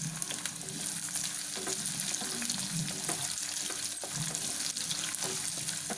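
Chopped onions sizzling in hot oil in a nonstick kadhai while a wooden spatula stirs them, with scattered light taps and scrapes of the spatula against the pan.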